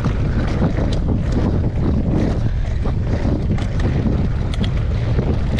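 Wind buffeting the microphone on a mountain bike riding down a trail, a steady loud low rumble with scattered sharp clicks and rattles.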